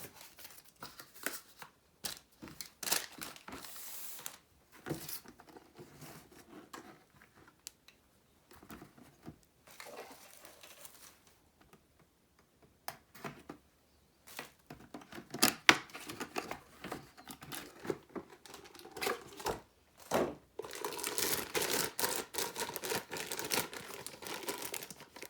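Packaging of a mini poster set being opened by hand: irregular rustling, tearing and small knocks, becoming a steady crinkling near the end.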